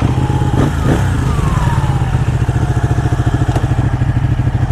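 Ducati V-twin motorcycle engine running at a steady speed on the move, with a rapid pulsing beat. A thin whine glides down in pitch about a second in.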